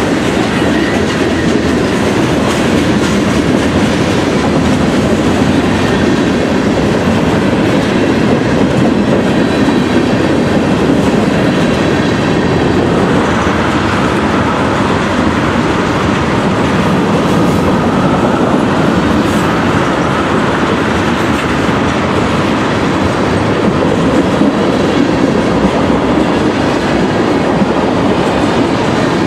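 Freight train cars rolling steadily past at close range: a continuous rumble and clatter of steel wheels on the rails.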